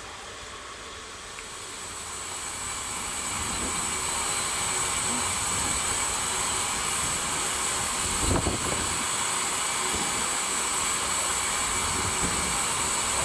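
Steam hissing steadily from a standing HSB 99 7237-3 narrow-gauge 2-10-2 tank locomotive, swelling in over the first few seconds, with a single thump about eight seconds in.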